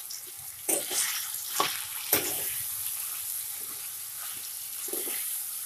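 Steel ladle stirring and scraping through vegetables and ground spices in a kadhai, over a steady sizzle of frying in hot oil. The ladle gives several sharp scrapes against the pan in the first two seconds or so, and then the sizzle carries on with lighter stirring.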